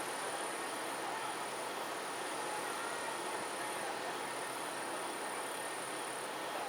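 Summer night ambience: insects trilling in a continuous high band over a steady rushing background noise, with no firework bursts heard.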